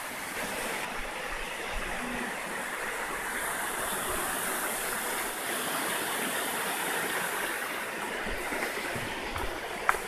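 Steady rush of a mountain stream running over rocks, with one short knock near the end.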